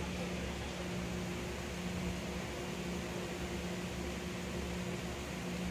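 Steady low electrical hum with an even hiss, as from a running fan or motor.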